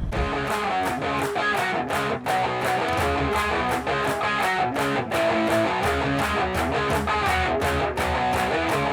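Outro music: guitar over a steady beat.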